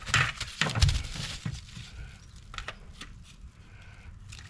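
Plastic nippers snipping and cracking bits off a Ford Bronco plastic trim piece: a series of sharp cracks and snaps, loudest in the first second. The plastic is being trimmed where it rubs against the new LED tail light.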